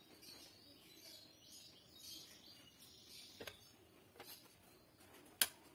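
Faint birds chirping in the background. Then three light clicks as parts of a built-in gas hob are handled by hand; the last, near the end, is the sharpest.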